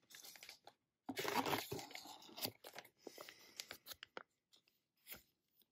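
Plastic lure packaging crinkling and rustling as a bag of soft-plastic baits is handled and lifted out of a cardboard box. It is loudest for about a second near the start, then comes in a scatter of faint crackles.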